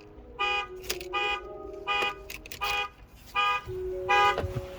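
A truck's alarm sounding its horn in short repeated honks, about one every three-quarters of a second, with a lower tone holding between some of the honks.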